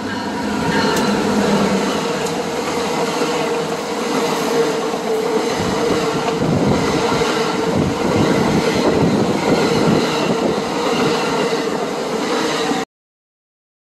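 A train passing close by: a loud, steady rumble with a constant hum running through it and low thudding from the wheels in the second half. It cuts off suddenly about a second before the end.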